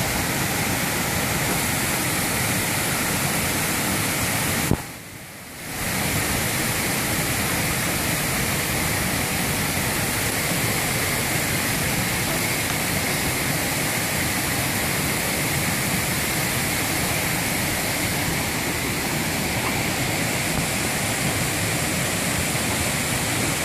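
Steady rush of whitewater from a rocky stream's rapids. It dips sharply for about a second, about five seconds in, then comes back.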